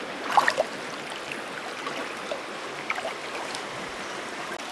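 Shallow river water flowing steadily, with a few small splashes and drips as hands move in the water, the sharpest about half a second in and a couple more around three seconds in.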